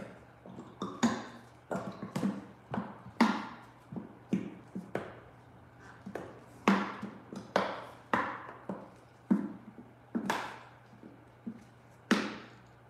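Irregular sharp taps and clicks of plastic containers being handled and knocked together while epoxy resin and hardener are measured out, roughly one or two a second.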